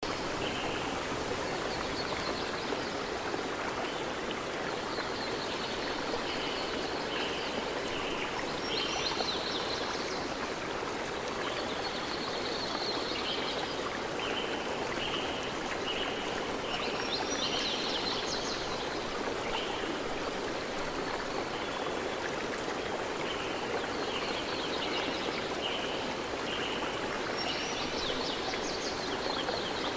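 A steady rushing hiss like running water, with runs of short high chirps and a brighter chirping flurry about every eight seconds.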